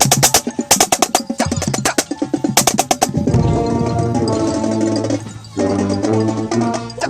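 Marching snare drum played close up, with rapid crisp strokes for about the first three seconds. Then the corps' sustained brass chords take over, with the drumline still playing underneath, and there is a short break about five and a half seconds in.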